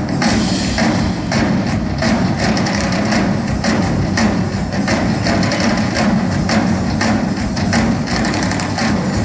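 A symphony orchestra with massed drum kits playing, a dense, driving run of drum strokes over sustained orchestral sound, heard from the audience in a large arena.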